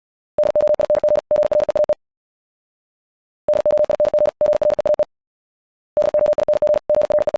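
High-speed Morse code at about 70 words per minute from a practice file: a single steady tone keyed in very fast dots and dashes. It comes in three bursts of about a second and a half each, every burst broken once by a brief gap, with pauses of silence between them.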